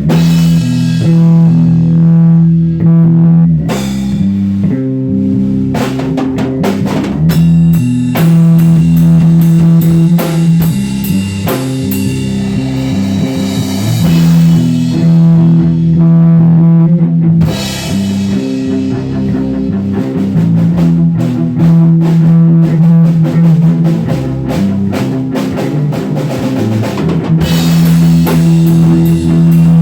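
Live rock jam: a drum kit with bass drum and cymbals playing under guitar, with a loud low riff that shifts note every second or two.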